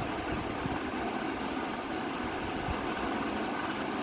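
A steady mechanical hum and hiss, even and unbroken.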